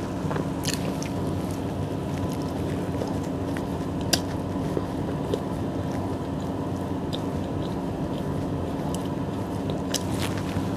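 Close-up chewing of a soft bread roll, with a bite and scattered wet mouth clicks, the sharpest about four seconds in. Over it runs a steady hum.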